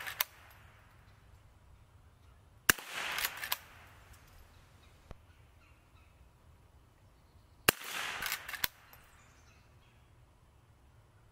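Marlin Model 39A lever-action .22 rifle fired twice, about five seconds apart, each sharp crack followed by about a second of clatter and clicks as the lever is worked.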